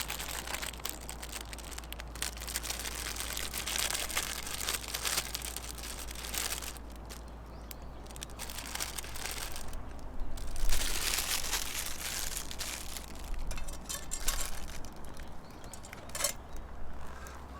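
Plastic food packaging crinkling and rustling as it is handled and opened, in stretches broken by short pauses.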